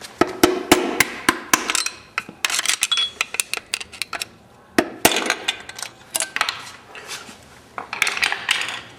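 Hand tools and metal engine parts clinking and knocking during the teardown of a Mitsubishi 4G63 short block, as a piston and connecting rod come out. Many quick, sharp clicks and knocks in the first two seconds, then several short bursts of metallic rattling.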